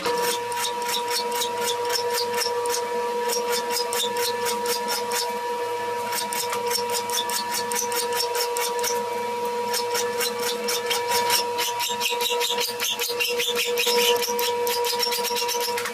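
A power grinder runs steadily, grinding a chamfer onto the butt of a steel axe head. It gives a constant whine with dense, rapid ticking from the grinding over it.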